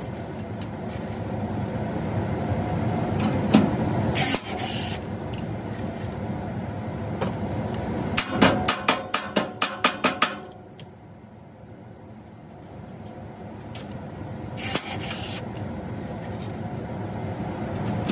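Cordless rivet gun at work on a steel plate: short whirring pulls that end in a snap, a couple of times, with a quick run of about eight sharp knocks a few to a second around the middle, over a steady background hum that drops away about ten seconds in.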